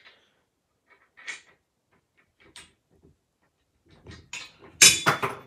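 Steel parts of a Harbor Freight engine stand's rotating head and bolted mounting arms clinking and knocking as the head is turned by hand: a few light knocks, then a louder metal clatter near the end.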